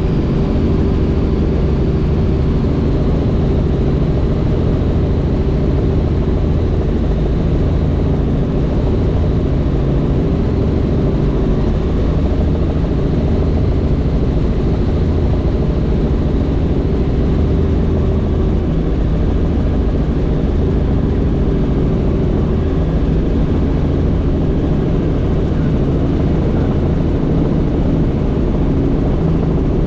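Helicopter in flight: the steady drone of the rotor and engine, unchanging throughout.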